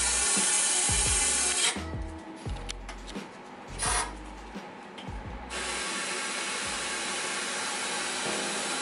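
Rushing air hissing through a stopped-up AC condensate drain line as it is blown out to clear the clog. It runs in long blasts, stopping about two seconds in for clicks and knocks with a brief burst, then starting again a few seconds later.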